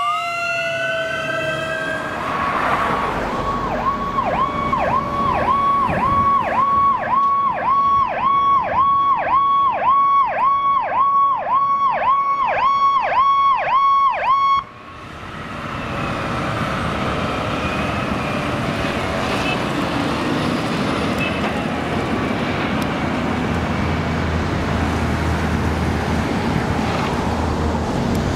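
Fire truck siren winding up, then warbling fast in a steady repeating pattern about twice a second, with a second siren tone slowly falling underneath. About halfway through it cuts off sharply to a fire rescue truck's engine running and road noise as the truck drives by.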